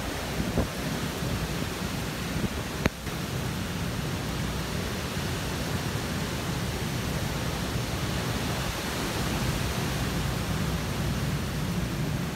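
Hurricane winds rushing through trees, a steady noisy rush with a low rumble. There is one sharp click about three seconds in.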